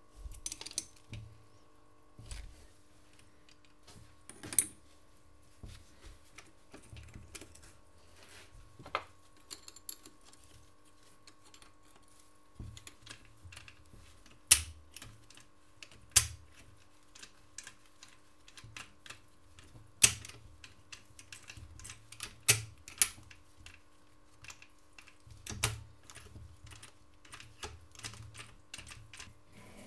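Hand work on a Simson M531 engine's aluminium crankcase: a spanner and loose metal parts clicking, tapping and clinking against the case and the workbench in scattered sharp ticks, with a handful of louder clinks, over a faint steady hum.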